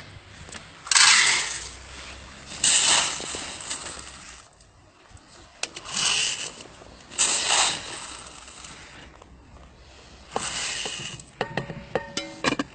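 Dried corn kernels poured by the handful into a metal pot, rattling and hissing against the metal in about five separate pours. Near the end come a run of metallic clicks and clinks as the lid goes on.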